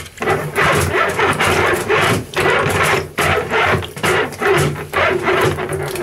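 Handheld drum drain auger's steel cable being turned inside a blocked basin drain, rattling and scraping in repeated strokes about once a second, with the standing water in the basin sloshing around it.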